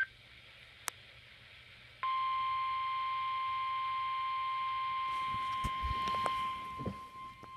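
NOAA Weather Radio's 1050 Hz warning alarm tone comes on sharply about two seconds in and holds one steady, unbroken beep through a weather radio's speaker. It is the attention signal that opens an Emergency Alert System warning, here a severe thunderstorm warning. A single click comes before it, and a few low thumps come near the end.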